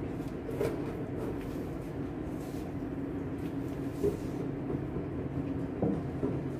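A steady low machine hum, with a few light knocks about a second in, near the middle and near the end.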